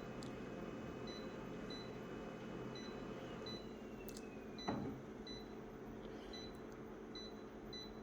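Steady electrical hum from a running appliance, with faint short high-pitched beeps repeating about every half second and a single click about halfway through.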